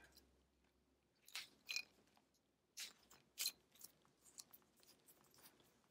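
Faint scattered clicks and crinkles of hard plastic being handled as the screw-on connectors of two LED neon rope light strands are fitted together, a few louder clicks around one and a half and three seconds in.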